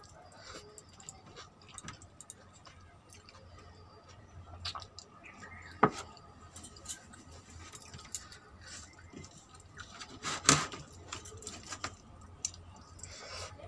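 A person eating rice and vegetable curry by hand: moist chewing and squishing mouth sounds with scattered small clicks. One sharp click about six seconds in, and a brief burst of knocks around ten and a half seconds, over a faint steady low hum.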